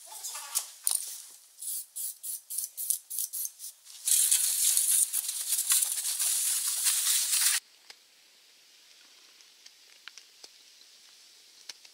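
A tow rope being pulled and knotted through a steel ring: quick rustling scrapes, about four a second. About four seconds in, a steady hiss starts and cuts off suddenly after about three and a half seconds, leaving only faint ticks.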